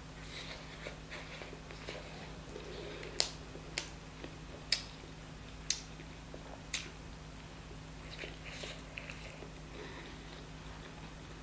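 A person eating chicken curry and rice close to the microphone: soft, irregular chewing and mouth sounds, with about five sharp smacks or clicks roughly a second apart in the middle, over a steady low hum.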